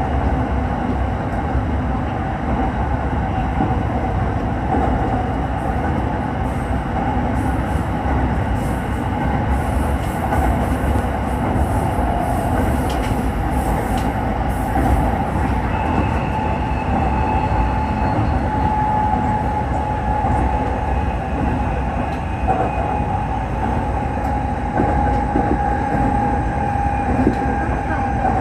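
SRT Red Line electric commuter train running along its elevated track, heard from on board: a steady rumble of wheels on rail with a steady high whine over it.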